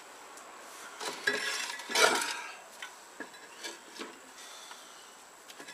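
Metal parts and hand tools clinking and scraping, with a louder cluster of clatter about two seconds in and a few light clicks afterward.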